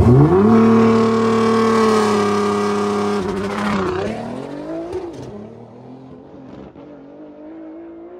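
Nissan GT-R drag car's twin-turbo V6 revved up sharply and held at a steady high launch rpm for about three seconds. It then launches, and the sound fades as the car runs away down the strip. The crew felt a slight stumble at the launch and at the top end, on freshly changed fuel and a tune still being set up.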